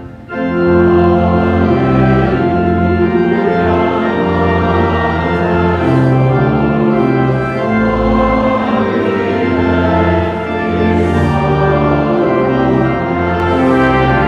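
Church organ playing a processional hymn in sustained chords with a moving bass line, with voices singing along. The music drops out for a moment at the very start, then comes back in.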